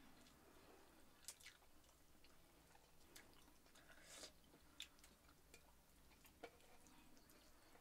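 Faint sounds of a person eating by hand: chewing, and fingers mixing rice and fish curry in a steel bowl, with a few scattered small clicks and squishes.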